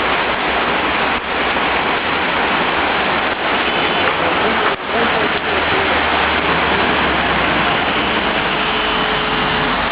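Rain falling steadily, an even hiss with no breaks, dipping briefly about five seconds in.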